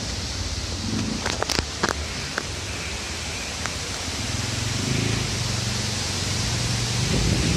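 Strong wind blowing through trees: a steady rushing noise of wind and rustling leaves, with a few sharp clicks between about one and two and a half seconds in.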